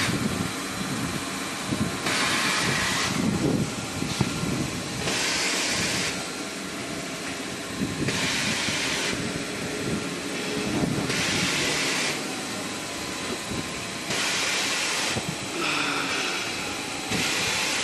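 Automatic band saw tissue log cutting machine running through its cycle: a steady machine hum, broken about every three seconds by a hissing burst of about a second.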